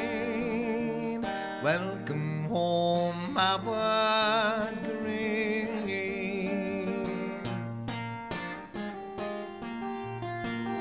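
Acoustic guitar fingerpicking a folk song accompaniment, with a male voice holding long notes with vibrato and sliding between pitches in the first half; after that mostly guitar plucking.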